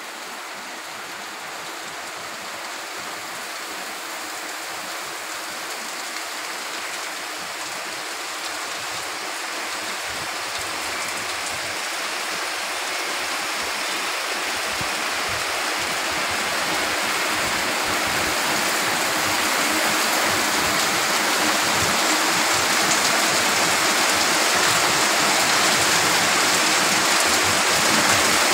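Heavy monsoon rain pouring steadily, a dense hiss that grows gradually louder.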